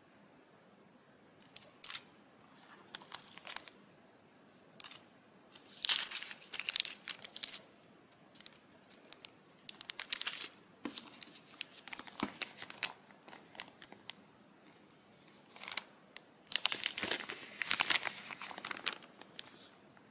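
Clear plastic packaging bags crinkling as they are handled, in irregular bursts, loudest about six seconds in and again near the end.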